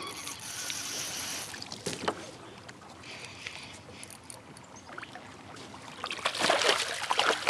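Water splashing as a hooked smallmouth bass thrashes at the surface beside a kayak during the fight. Soft water noise and small knocks at first, then the splashing turns loud about six seconds in.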